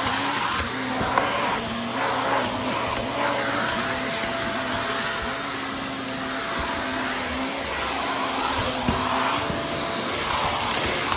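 Vacuum cleaner running as it sucks up crumbled sand-wall debris, its hum stepping up and down in pitch under a changing whoosh, with a couple of small knocks. The cleaner is overfull with debris, which gives its sound an abnormal note.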